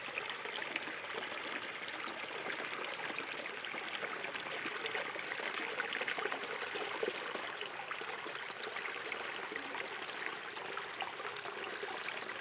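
Shallow river water flowing and trickling steadily, with many small splashing ticks.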